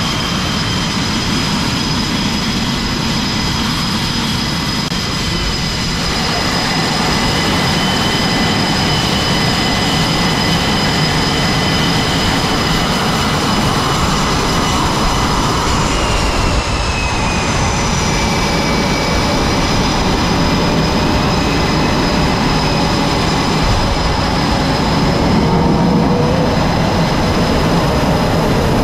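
F/A-18 Hornet jet engines running loudly on a carrier deck as a jet taxis past: a continuous jet roar with high steady whines, one of which drops in pitch about halfway through. It gets a little louder near the end as the jet's exhaust swings toward the listener.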